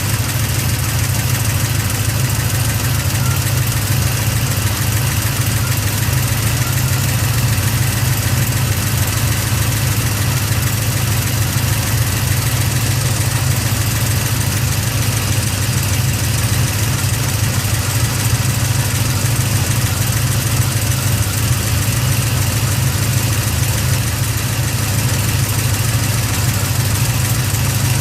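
GM LS7 7.0-litre V8 with a Livernois Stage 2C camshaft idling steadily, with the lifter noise the owner is recording it for.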